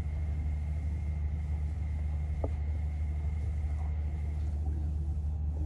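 Steady low rumble with a faint high whine over it that stops about three-quarters of the way through, and a single small tap near the middle.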